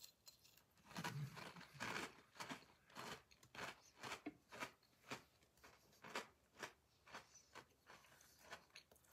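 Chewing a mouthful of crunchy butter-fried honey nut toasted oats: a faint run of crunches, about two a second.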